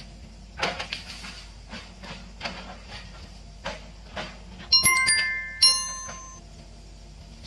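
A low steady hum with scattered short knocks, and two bright metallic rings about a second apart a little past the middle, each ringing with several tones and dying away; these rings are the loudest sounds.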